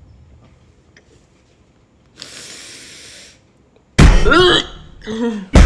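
A woman gagging behind her hand on the slimy texture of sea moss gel: a breathy retch about two seconds in, then a loud cry with wavering pitch about four seconds in and a shorter one just after. Loud music starts at the very end.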